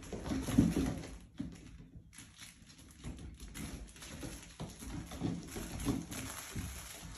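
Mini goldendoodle puppies' paws pattering and scrabbling on a hard floor as they run and wrestle, with irregular soft taps and thumps, the loudest about half a second in.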